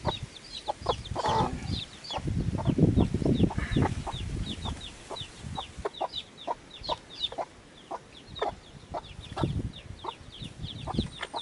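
Domestic chicks peeping continuously in a quick series of short, high, falling notes, with the mother hen clucking low and short. A burst of low rumbling noise comes about two to four seconds in.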